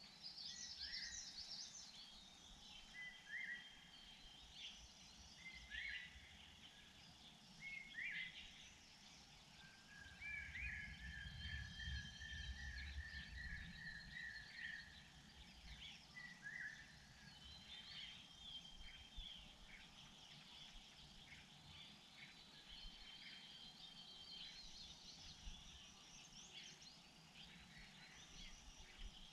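Faint wild birds calling and singing: scattered short chirps and whistles, with one longer trill lasting several seconds near the middle, over a low rumble.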